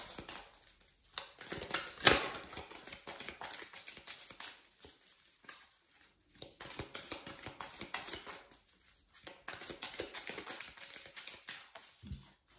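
A deck of tarot cards being shuffled by hand: a long run of quick soft clicks and riffles, with one sharper snap about two seconds in and a low thump near the end.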